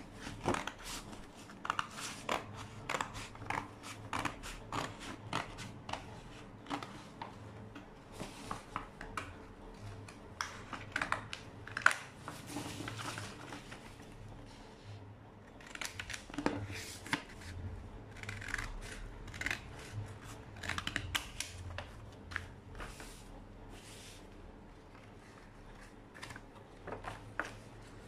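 Scissors cutting through a paper sleeve pattern: uneven runs of short, sharp snips with a couple of brief pauses.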